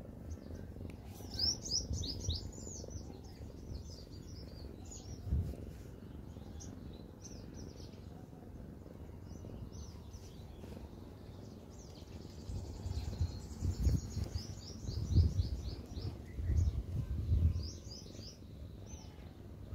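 Small birds chirping in quick runs of short notes, over a continuous low rough rumble typical of a kitten purring while being stroked. A few louder low thumps come in the last third.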